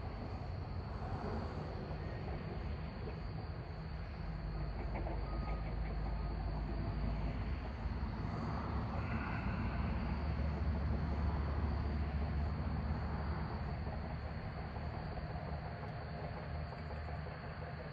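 Low rumble of passing road traffic that swells to its loudest about halfway through and then eases off, over a steady high chirring of crickets.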